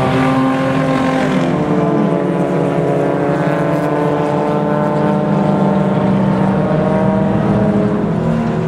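Race car engines running hard as a small blue Ford Festiva race car and a dark sedan pass along the track. The engine notes rise and fall slowly in pitch.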